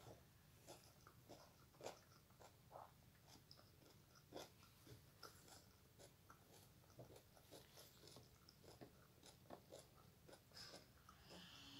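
Faint close-up eating sounds: irregular soft chewing and mouth clicks spread through the whole stretch, a few of them sharper than the rest.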